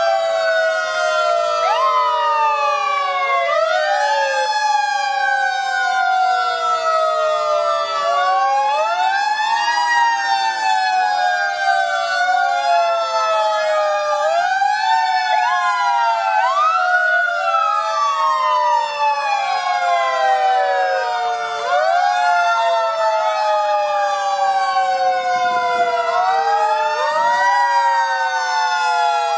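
Several fire engine sirens wailing together, out of step with one another: each rises quickly in pitch and then falls away slowly before rising again.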